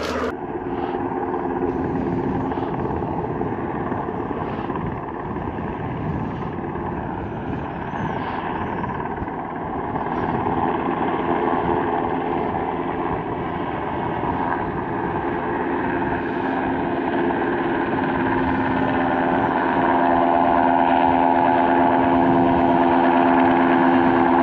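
Cal Fire helicopter hovering, its rotor and turbine giving a steady drone with several held tones, growing louder near the end.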